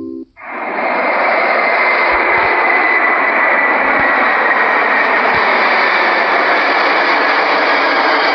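Steady jet-airliner engine noise, an even rushing roar with a faint whine above it, fading in quickly just after the last notes of a cabin chime cut off.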